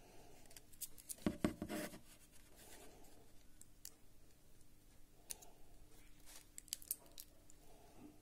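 Faint handling noises of a smartphone and a loose replacement screen panel turned in the fingers: light clicks, taps and rustles, with a louder cluster of clicks about a second in and a few more scattered clicks later.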